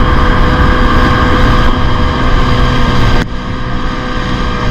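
Small boat's engine running steadily while under way at sea. The sound drops abruptly in level about three seconds in.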